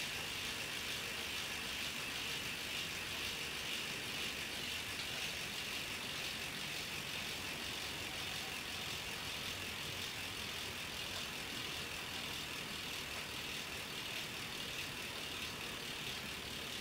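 Bicycle rear hub freewheeling with the cassette held still: the freehub pawls make an even, high-pitched ticking buzz that fades slightly as the wheel slows down.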